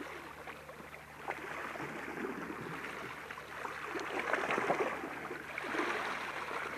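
Small sea waves lapping and sloshing against shoreline rocks, swelling and ebbing in surges a second or two apart.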